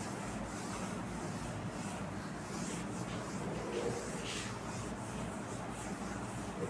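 Whiteboard duster wiping across the board in repeated rubbing strokes, over a steady low hum.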